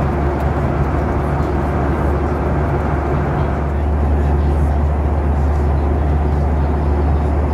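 Steady cabin roar of a Boeing 737 in flight, heard from a window seat: jet engine and airflow noise with a strong deep hum.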